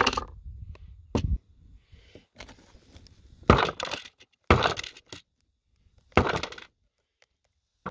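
Mallet blows on a Lee Classic Loader's steel sizing die, driving a fired .45-70 brass case into it to resize it: about five sharp knocks, a second or two apart.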